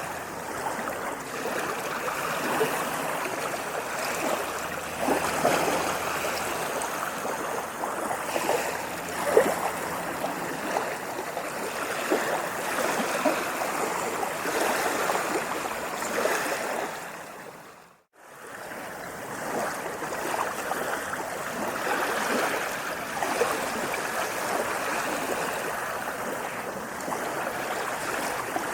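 Small waves washing and lapping at the water's edge, a steady splashing wash of water. It fades out to silence for a moment about two-thirds of the way in, then fades back in.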